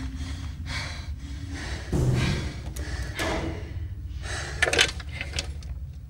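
A person breathing hard in heavy, uneven gasps, with a louder voiced gasp about two seconds in and a couple of sharp knocks near the end.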